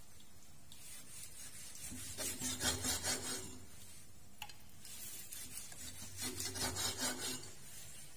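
Cleaver slicing through pork belly onto a wooden chopping block, in two bouts of quick strokes with a short pause between them.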